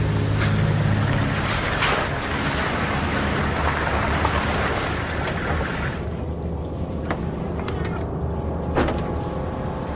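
Tense soundtrack underscore: a low sustained drone under a dense rushing noise, like surf or wind, that cuts off abruptly about six seconds in. A quieter drone with a few faint clicks follows.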